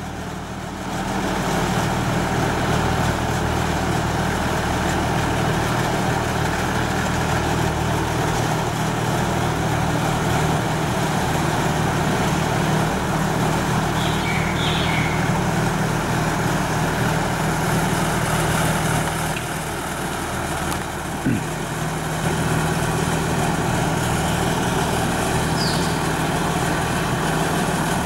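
Boat travel lift's engine running steadily with a low hum, easing off briefly about twenty seconds in, with a single click at about the same point.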